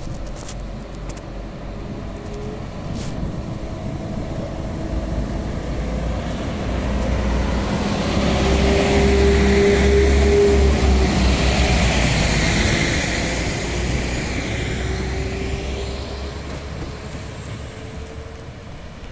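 Class 197 diesel multiple unit pulling away from a station under power and passing close by: the engine and running noise grow louder, are loudest about ten seconds in as the train goes past, then fade as it draws away with the engine note rising.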